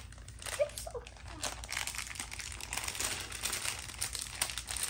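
Foil snack bag crinkling as it is handled and pulled at, a steady run of small crackles.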